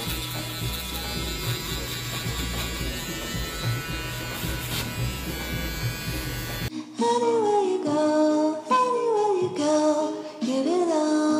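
Stylecraft Rebel foil shaver's motor running steadily with an even buzzing hum. About two-thirds of the way through it cuts off abruptly and a song with a singing voice takes over.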